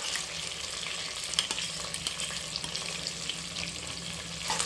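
Chicken with freshly added ginger-garlic paste sizzling in hot oil in a pan, a steady hiss with a few light clicks.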